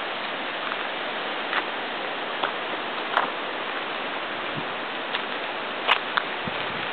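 Steady rushing of the Coquitlam River's fast, high water, with a few scattered sharp clicks and snaps.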